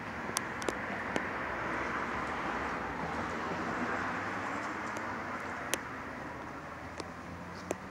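Siemens U2 light rail train rolling slowly past, a steady running noise of wheels and motors that swells in the middle and eases off toward the end. Several sharp ticks from the recording phone's case are scattered through it.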